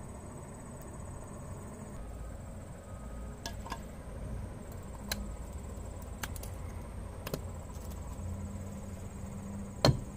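Insects trill steadily in the background, with a few light clicks in the middle. Near the end, a soft-faced mallet strikes twice, tapping the grease cap onto a trailer wheel hub; these strikes are the loudest sounds.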